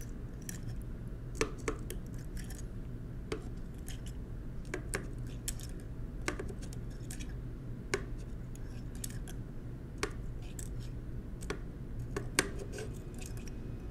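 Small, irregular metal clicks and clinks as fingers push the little springs and parts among the key stems of a 1920s Monroe Model K mechanical calculator's keyboard, with a faint low hum underneath. The sharpest click comes near the end.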